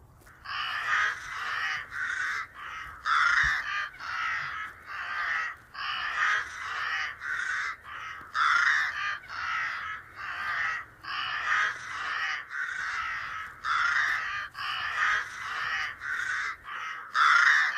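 Crows cawing: a long string of harsh caws, about two a second.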